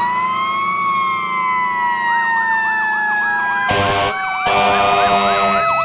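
Fire engine sirens: a wail that glides up and then slowly falls, joined about two seconds in by a fast warbling yelp. A harsh, noisy blast cuts in about four seconds in.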